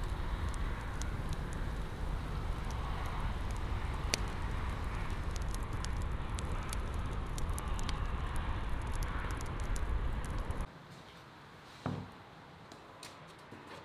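Steady outdoor noise with a low rumble and scattered faint ticks, which cuts off suddenly about ten and a half seconds in. About a second later a plastic bowl is set down on a wooden table with a single knock.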